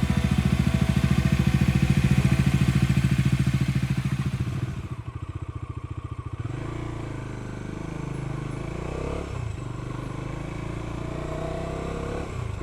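Bajaj Dominar 350 motorcycle engine running with an even, rapid firing beat, loud at first, then dropping away about five seconds in and carrying on quieter. No knocking stands out; its cam chain tensioner has just been replaced.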